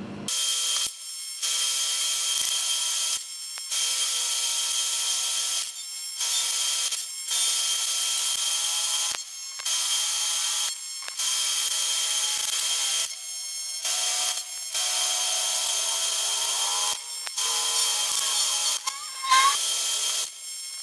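AC TIG welding arc from an HTP Invertig 221 set to 220 amps and 99 Hz, buzzing steadily while tack-welding aluminum bungs. It comes in about a dozen stretches of a second or two each, with brief breaks between them.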